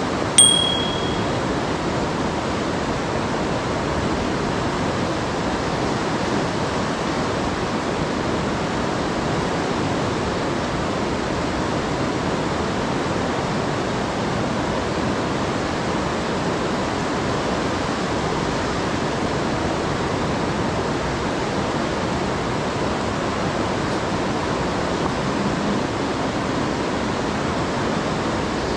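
Steady rushing of a fast-flowing river. About half a second in, a short bright ding sounds once: the chime of a subscribe-button animation laid over the video.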